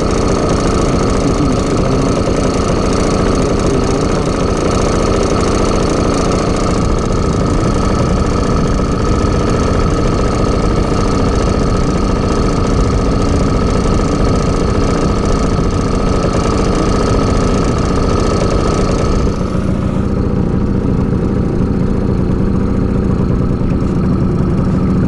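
Small outboard motor on an inflatable boat chugging steadily almost at idle, pushing the boat slowly at trolling speed. About three quarters of the way in, the higher hiss drops away and the sound turns duller.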